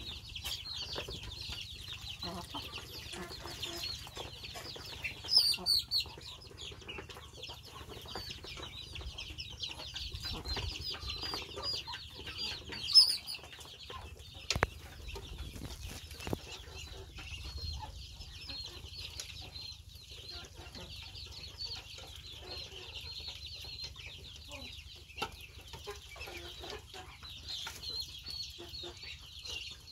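A flock of ducklings peeping continuously in a dense, high-pitched chatter while they feed, with a few louder calls about five and thirteen seconds in.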